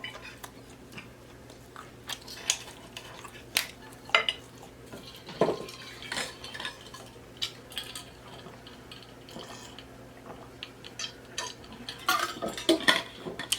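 Fork and knife clinking and scraping against a plate in scattered light taps while eating, a few of them sharper.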